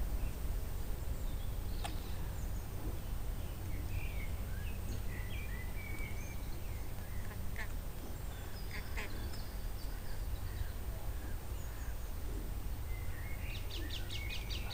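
Short bird calls scattered over a steady low rumble, ending with a quick run of sharp clicking notes near the end.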